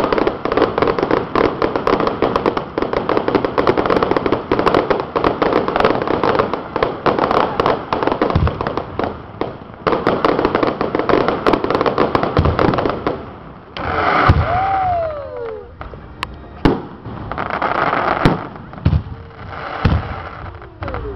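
Fireworks display: a dense barrage of crackling and popping with booming shell bursts, which thins out about two-thirds of the way through into separate bangs with short gaps between them.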